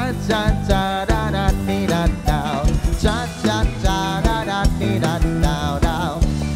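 Live band playing amplified music with drum kit, guitars and bass keeping a steady beat, under a wavering lead melody line.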